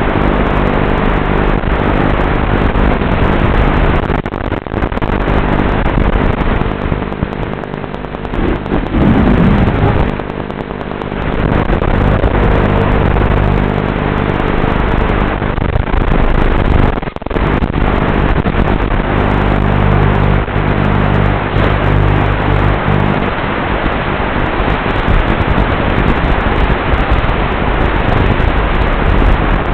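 Racing quadcopter's brushless motors and propellers buzzing steadily over a hiss, dropping briefly a few times as the throttle eases, with a sweep in pitch about nine seconds in.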